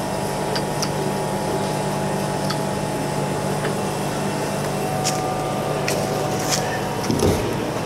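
A steady mechanical hum from workshop machinery, with scattered light metallic clicks and a brief low thud near the end.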